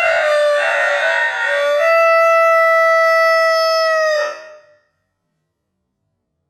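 A rooster's crow slowed to a quarter of its speed, so it sounds low and drawn out. Its last note is held steady for about two seconds, then the crow ends about three quarters of the way through.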